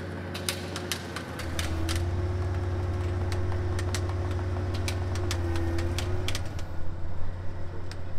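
LPG forklift engine running under load as it tows a heavy tram on machine skates, growing louder about a second in and easing off after about six seconds. Irregular sharp clicks sound over it throughout.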